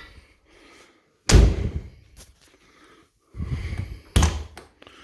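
Porsche 944 door handle and latch being worked on a freshly repaired door lock: a sharp clack about a second in, a short rattle, then a second sharp click near the end as the latch lets go.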